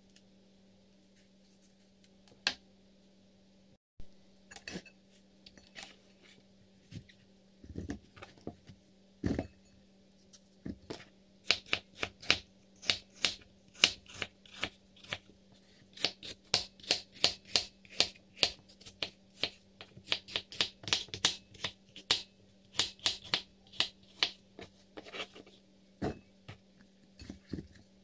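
Kitchen knife slicing peeled apples on a plastic cutting board, each cut ending in a sharp tap on the board. There are a few scattered cuts at first, then a quick, steady run of about two or three a second from around a third of the way in, over a faint steady hum.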